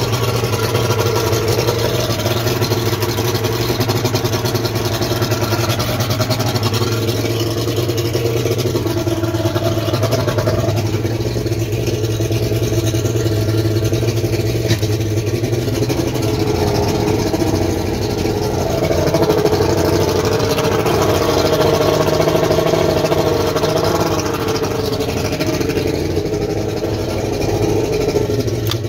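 1991 Mercury Black Max XR4 150 hp six-cylinder two-stroke outboard running at idle. As the Quicksilver throttle/shift lever is worked, its note rises and gets louder for a few seconds past the middle, then settles back to idle.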